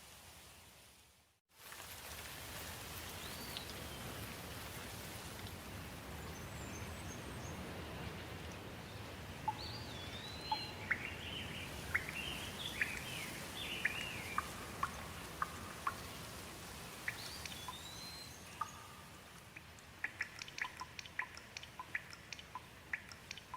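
Steady rain falling, with birds giving short whistled calls now and then and sharp drip-like ticks, which come thickest near the end. The sound fades out and cuts back in about a second and a half in.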